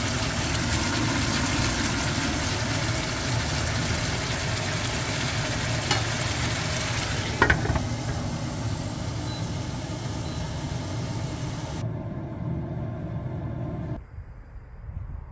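Meat and onions sizzling in a frying pan, a steady frying hiss. About seven and a half seconds in, a metal lid clinks onto the pan and the sizzle turns duller; it drops away suddenly near the end.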